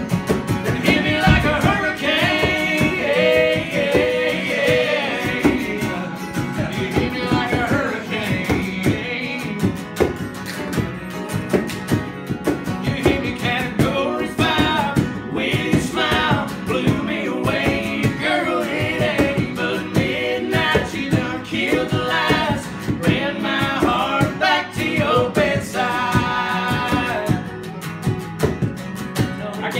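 Two acoustic guitars strummed together while a man sings a country song over them.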